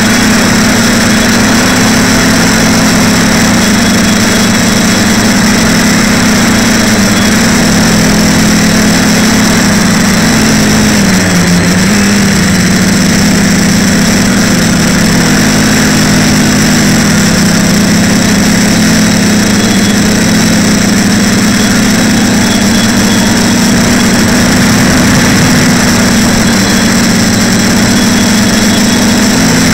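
TBS Discovery quadcopter's brushless motors and propellers, heard from on board as a loud, steady hum. The pitch wavers slightly with throttle and dips briefly and recovers about a third of the way through.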